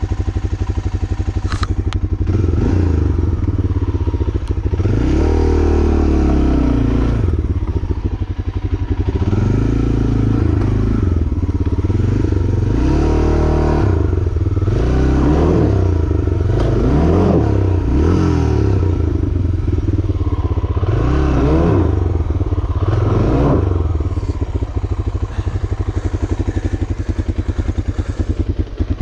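A vehicle engine revved hard again and again, its pitch rising and falling in repeated surges, then running more evenly in the last few seconds.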